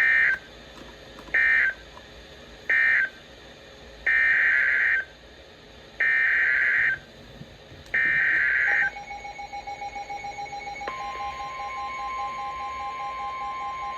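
Emergency Alert System SAME data bursts: three short screechy end-of-message bursts, then three longer header bursts of about a second each. A quickly pulsing beep follows for about two seconds, and then a steady single-pitch alert tone, the weather-radio warning alarm tone, starts about eleven seconds in and holds.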